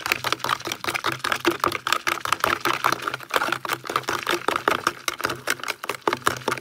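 A toothbrush rapidly stirring a foamy mix of OxiClean and laundry detergent in a clear plastic bowl. The brush knocks and scrapes against the bowl in a fast, continuous run of clicks, over a low steady hum.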